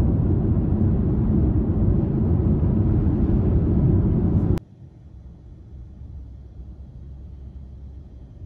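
Steady low road rumble of a car on the move, as heard from inside the cabin. It cuts off suddenly a little past halfway, leaving a much quieter low hum.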